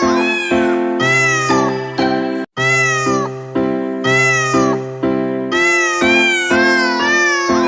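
Cat meows repeated in a quick rhythm, about two a second, each rising then falling in pitch, over a music backing of held chords and a bass note. The sound cuts out briefly about two and a half seconds in.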